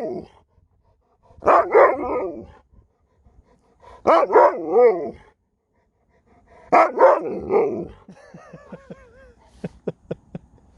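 Alaskan malamute 'talking': three drawn-out vocalizations of about a second each, pitch bending up and down, in reply to a question. A faint wavering whine and a run of sharp clicks follow near the end.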